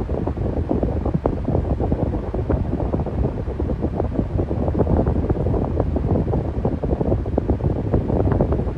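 Electric fan running steadily: a low, even rush of air with a fast flutter as the airflow buffets the microphone.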